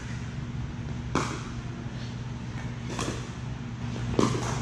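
Pickleball paddles hitting a plastic ball: a sharp pop about a second in, another about three seconds in, then two quick pops near the end as the players volley. A steady low hum runs underneath.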